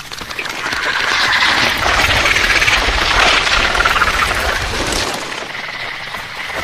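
A Jurassic Park dinosaur sound effect: a long, raspy, high call that eases about five seconds in, then a second call begins near the end.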